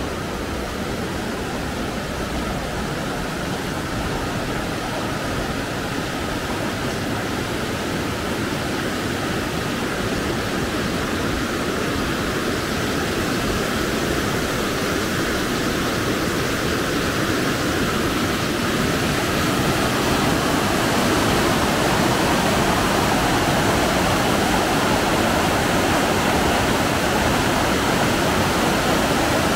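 Steady rush of flowing water, growing gradually louder.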